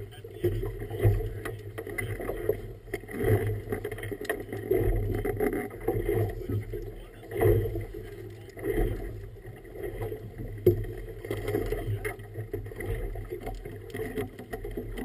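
Small boat under way on choppy water: water slapping and rushing against the hull, rising and falling irregularly, over a low steady hum.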